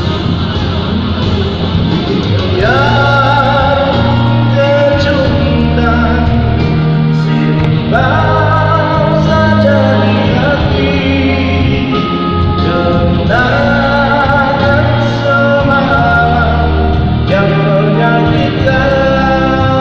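A male singer singing a ballad into a microphone over instrumental backing with bass, amplified through a PA in a large hall. The sung phrases rise in and start about every five seconds.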